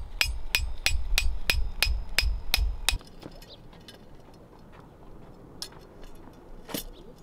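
Hammer blows on the top of a long metal stake, about three a second: ten ringing metal clangs over a low rumble, stopping about three seconds in. After them come only a few faint knocks.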